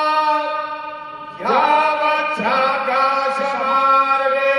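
Brahmin priests chanting a Sanskrit Vedic blessing mantra in long, drawn-out held notes. One phrase fades away about a second in, and a new one starts about a second and a half in.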